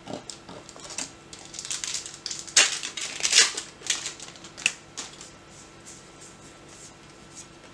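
Crinkling and rustling of a MetaZoo trading-card booster pack and its cards being handled, in a quick run of crisp rustles. They are loudest about two and a half to three and a half seconds in and die away after about five seconds.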